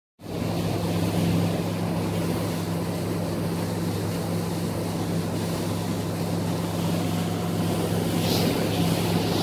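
Motorboat engine running at a steady speed, a constant low hum, with wind and water rush over it as the boat moves across calm water.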